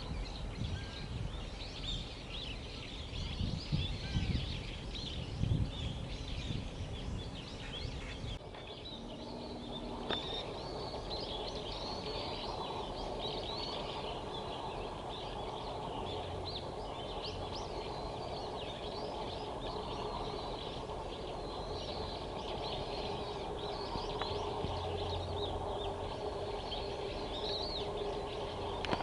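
Many small birds chirping throughout, with wind buffeting the microphone for the first eight seconds or so. After that the wind drops away and a steady low hum fills in under the chirps.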